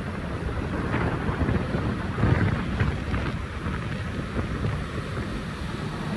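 Wind gusting irregularly against the microphone on the deck of a moving ferry, over the low rumble of the ship underway.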